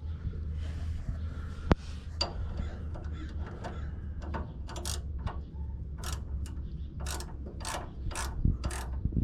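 Ratchet wrench clicking in a run of short back-and-forth strokes, roughly two a second, working a nut on the front suspension, starting a little before halfway. A single sharp metallic click comes before that, about two seconds in.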